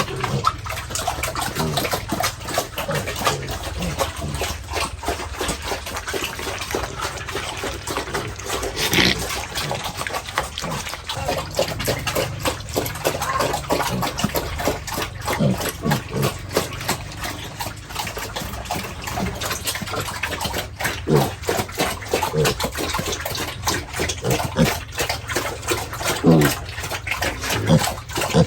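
Pigs feeding at a trough on wet feed: constant wet smacking and slurping chews, with short grunts breaking in now and then.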